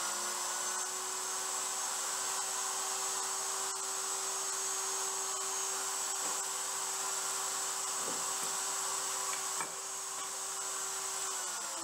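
Table-mounted router running at a steady whine while a board is pushed over the bit to cut a dado. Near the end the router switches off and winds down, falling in pitch.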